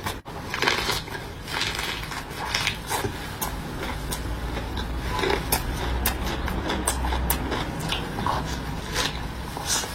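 Close-up eating sounds: a person chewing food, with many small wet mouth clicks and smacks.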